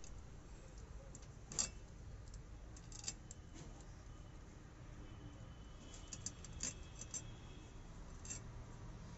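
Hilsa fish being scaled against the fixed curved blade of a boti: faint, scattered scraping clicks, with a quick cluster of them about six to seven seconds in.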